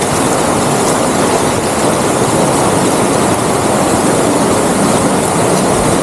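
Steady rush of a shallow rocky stream with small cascades, even and unbroken throughout.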